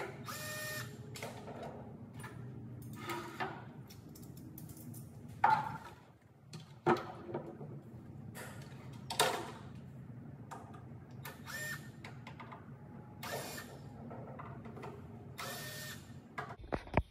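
Short bursts of a small cordless drill/driver whirring as it backs the screws out of dresser drawer pulls, one burst every one to two seconds, over a steady low hum.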